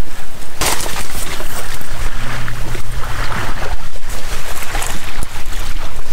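Wind buffeting the microphone: a loud, steady rushing noise with a heavy low rumble, starting abruptly about half a second in.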